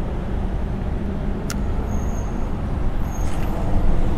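Steady low rumble of road traffic, with one sharp click about a second and a half in.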